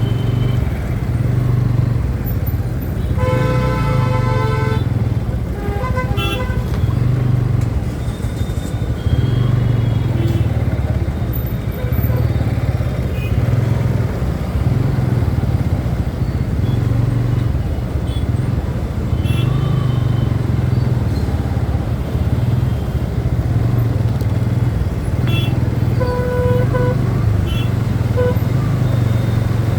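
Vehicle engine running steadily on the road amid traffic noise, with horns honking about three seconds in and again near the end.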